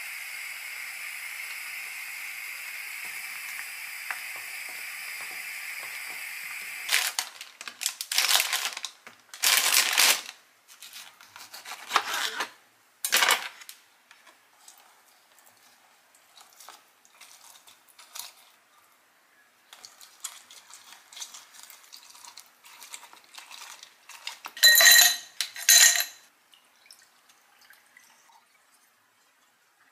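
A pan of soup tteokbokki simmering with a steady bubbling hiss; after about seven seconds it gives way to a series of loud clattering and scraping kitchen noises as mandarins are handled and pressed on a plastic hand citrus juicer, the loudest pair a few seconds before the end.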